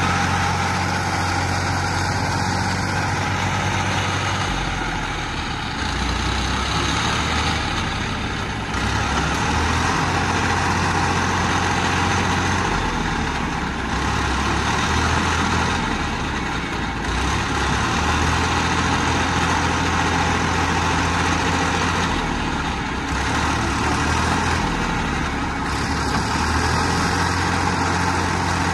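Farm tractor's diesel engine running steadily, with its low note shifting now and then, while the tractor sits bogged in mud with a loaded trailer.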